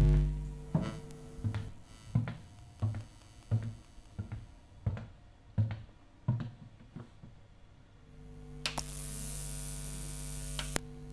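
Footsteps on a hard corridor floor, about ten even steps at a walking pace. A steady electrical hum then rises with a bright hiss over it, and the hiss cuts off suddenly near the end.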